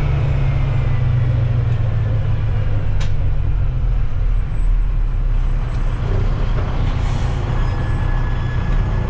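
Heavy dump truck's diesel engine running steadily in first gear while descending slowly, heard inside the cab as a deep, constant drone with road noise.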